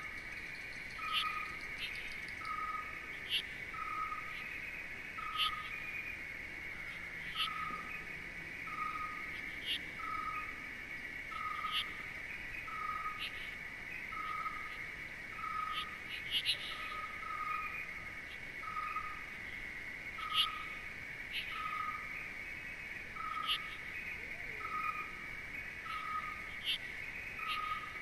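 Nature ambience: a steady insect trill, with a short call repeated at an even pace a little more than once a second, and scattered sharp chirps.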